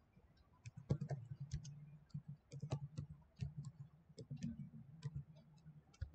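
Typing on a computer keyboard: a quick, irregular run of key clicks as a line of text is entered.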